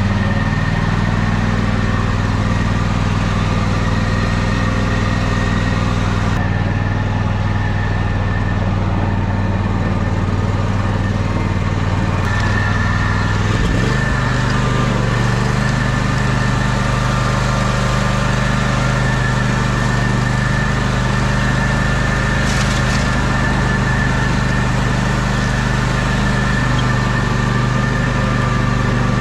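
John Deere X300 riding mower's engine running steadily as the mower drives, with a steady high whine alongside. About halfway through, the engine note steps up to a higher speed.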